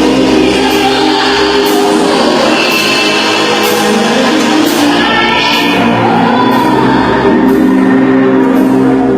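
Christian worship band music with singing and a regular beat.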